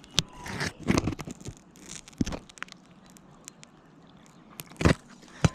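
Scattered knocks, scuffs and crunches of handling and movement on an asphalt shingle roof, with a few sharper knocks, the loudest near the end.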